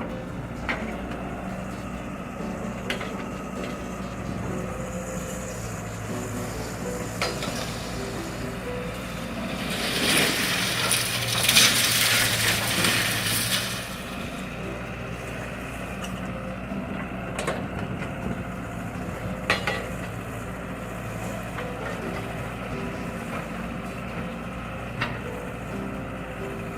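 Excavator engine running steadily while it clears fire debris of steel and steel roofing, with scattered metallic clanks. A louder stretch of scraping and crashing metal comes about ten seconds in and lasts a few seconds.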